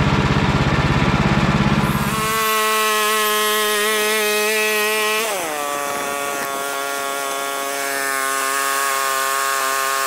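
A portable bandsaw mill's Kohler gasoline engine idles with a low, even chug, then is throttled up about two seconds in to a steady high whine as the band blade spins. A few seconds later the pitch drops and holds lower as the blade cuts into the log and the engine takes the load.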